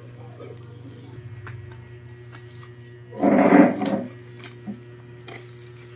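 Handling noises of a parcel being opened: light clicks and rustles over a steady low hum, with one loud rustling burst lasting about a second, about three seconds in.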